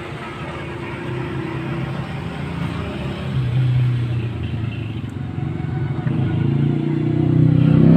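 A vehicle engine running, a low steady hum that grows louder and rises in pitch over the last couple of seconds.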